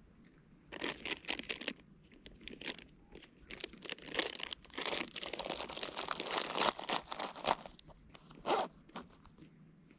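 A plastic snack bag crinkling and rustling as it is handled, in irregular bursts from about a second in until near the end.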